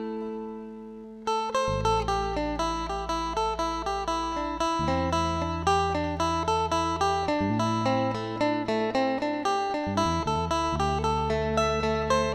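Instrumental background music: a quick run of plucked-string notes over a low bass line that changes every couple of seconds. A held chord fades over the first second before the plucked notes start again.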